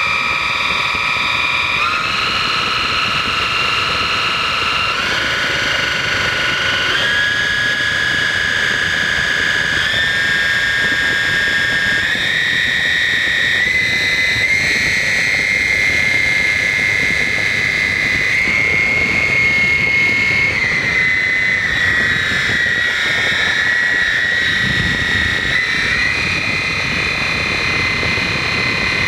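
3D-printed 400 mm electric ducted fan, driven through a 3D-printed planetary gearbox, running under power: a whine over a rush of air. Its pitch steps up in stages, dips for a few seconds past the two-thirds mark, then steps up again near the end.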